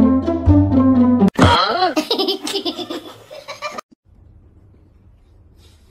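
Background music with low plucked string notes. About a second in, loud laughter breaks in and runs for a couple of seconds, then stops abruptly. Faint room hiss follows.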